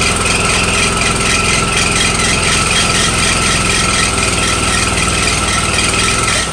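Dredge pump engine running steadily at speed, with a constant high whine over the engine note. The sound drops off suddenly at the very end.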